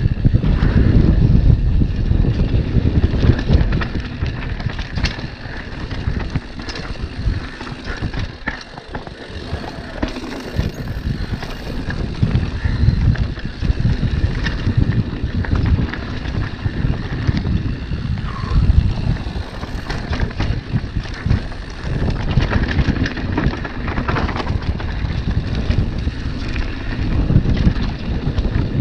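Mountain bike riding fast down a loose stony dirt trail: wind buffeting the camera microphone in a heavy rumble, with tyres crunching over stones and the bike clattering and knocking over bumps.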